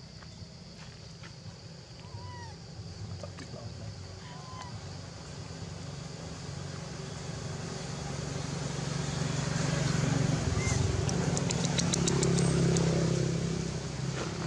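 A low engine hum grows louder through the second half and fades near the end, like a motor vehicle passing by. A few short chirps sound in the first half over a steady high hiss.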